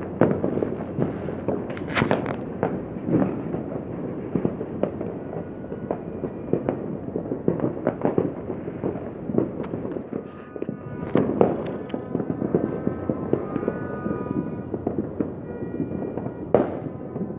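Fireworks and firecrackers going off in a dense, continuous barrage of bangs and crackles, with louder blasts about two seconds in, around eleven seconds in and near the end.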